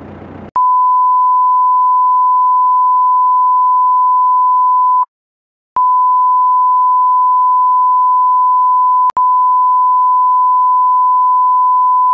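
Censor bleep: a loud, steady single-pitch electronic beep laid over her speech. It starts about half a second in, stops for about half a second around five seconds in, and has a short click just after nine seconds.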